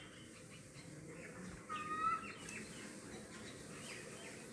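A bird calling outdoors: one flat, ringing call about two seconds in, with faint chirps around it over a low background hiss.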